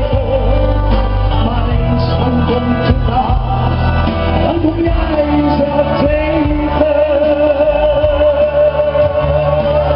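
Man singing into a microphone over loud backing music, with one long held note in the second half.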